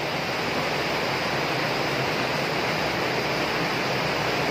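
Steady rushing of mountain stream water tumbling through a narrow rock gorge.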